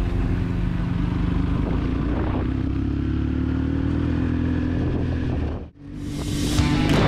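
Dual-sport motorcycle engine running at a steady speed while riding. Near the end the sound cuts out abruptly and fades back in.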